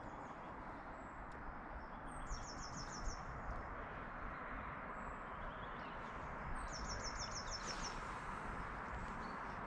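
A small songbird singing a short, fast trill of about seven repeated high notes, twice, a few seconds apart, with a few thin single high calls between, over a steady rushing background noise.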